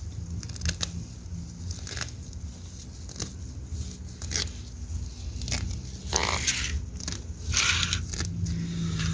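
Fresh parsley being picked from a garden bed: scattered crisp snaps of stems and rustling of leaves, with two longer rustles near the end.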